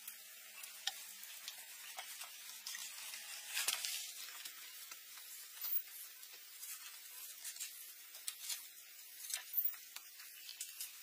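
Faint steady hiss with many scattered light clicks and scrapes of hand work on building materials, the sharpest click just under four seconds in.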